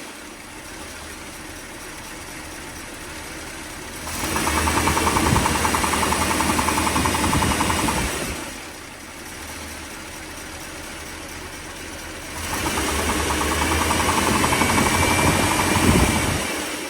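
1957 Mercury's 368 cubic-inch V8 engine idling, then revved up and held for about four seconds, dropped back to idle, and revved again. A rapid knock comes from inside the engine, and it stays there at the higher revs.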